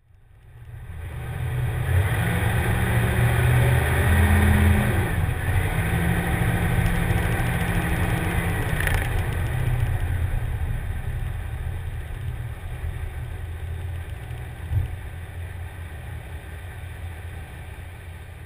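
An engine running with a low rumble, fading in over the first two seconds, rising and falling in pitch about four seconds in, then slowly fading away.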